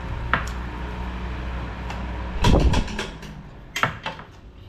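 Metal serving utensils clinking and scraping against ceramic bowls and plates as food is dished out. There is a small click near the start, a loud cluster of clatters about two and a half seconds in and another knock near four seconds, over a steady low hum.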